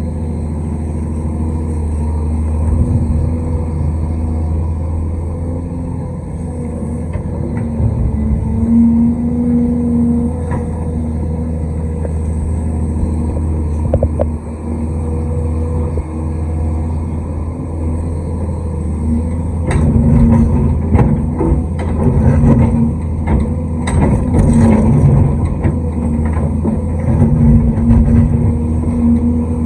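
Large excavator's diesel engine running steadily, with a dense run of knocks and rattles over the last third.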